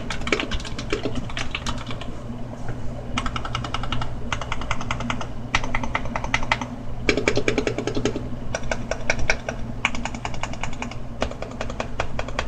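Custom mechanical keyboard with lubed Gateron Black linear switches, tuned stabilizers and an acrylic case, typed on in quick runs of keystrokes about a second long with short pauses between. A low steady hum runs underneath.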